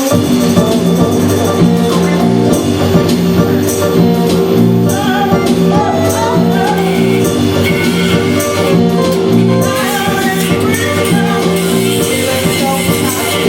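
Live band music: held instrument notes and a beat of light percussion, with a voice singing over them.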